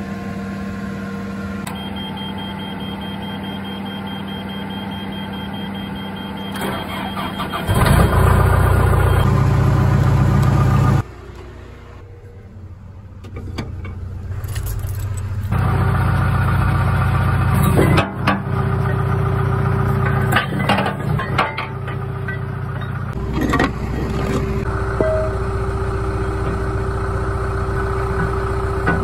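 A John Deere loader's engine running steadily. It turns abruptly much louder and lower around eight seconds in and again around sixteen seconds in, with a quieter stretch between.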